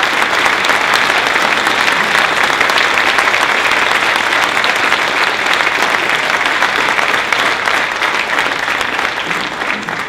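Audience and chorus applauding: many people clapping steadily, tapering off near the end.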